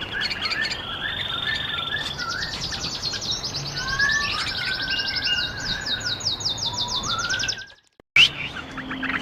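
Several bulbuls calling together: quick chirps, a fast run of repeated high notes, and lower slurred whistles. The sound cuts out briefly near the end and returns with a click.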